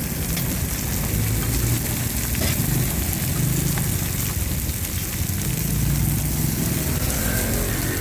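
Food sizzling as it is stir-fried, a steady hiss over a low rumble, with a few faint clicks.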